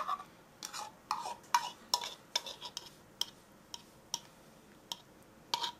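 Spoon scraping and clinking against the bowls as beaten egg mixture is scraped out over chopped vegetables: an irregular run of light, sharp clinks, some with a short ring.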